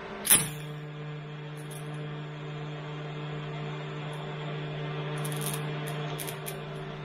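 Pulsed TIG welding arc on copper: it strikes with a sharp crack about a third of a second in, then runs as a steady low buzz at about 100 amps on fast pulse, with a few faint crackles.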